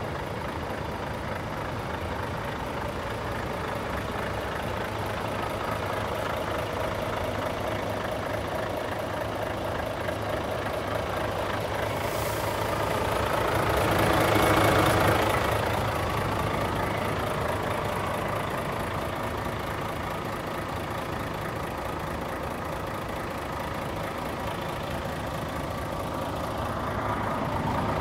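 Volvo FH500's 13-litre straight-six diesel idling steadily, swelling louder for a few seconds around the middle.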